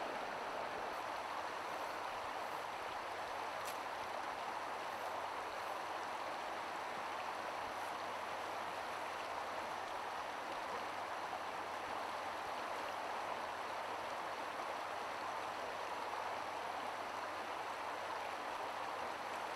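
Steady rush of river water running over a stony bed.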